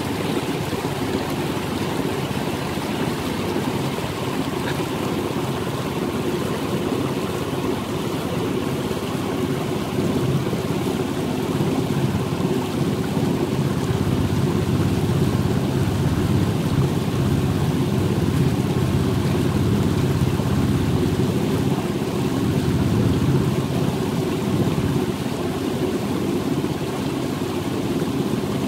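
A small boat under way: a steady motor drone with water rushing along the hull, a little louder about a third of the way in.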